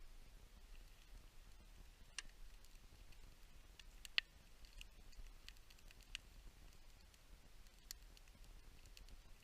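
Near silence, with a handful of faint, sharp clicks scattered through; the clearest comes about four seconds in.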